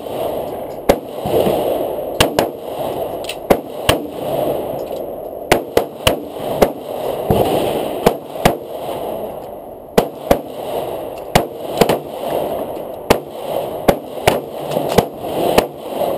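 Handgun shots at a shooting range: about two dozen sharp cracks at irregular spacing, sometimes two or three in quick succession, over a steady rushing background noise.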